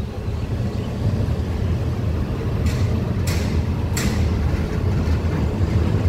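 Passenger train running slowly, a steady low rumble heard from inside the coach, with a few sharp clicks about halfway through.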